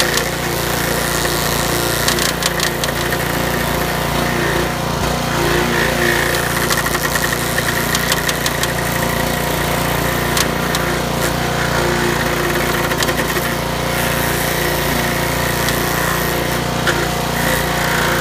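Crary BearCat stump grinder's small gas engine running steadily under load while its cutter wheel grinds into a stump, with an irregular crackling of the teeth chewing wood.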